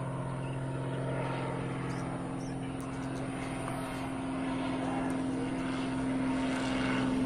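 Single-engine light propeller plane towing a banner overhead, its engine and propeller giving a steady low drone that grows slightly louder toward the end.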